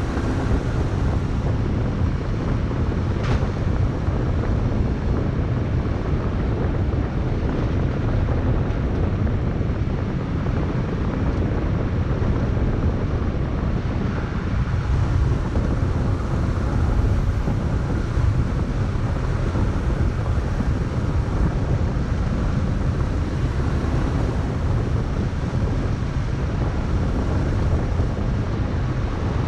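Steady noise of a vehicle driving along a gravel road, with wind buffeting the camera's microphone; a single short tick about three seconds in.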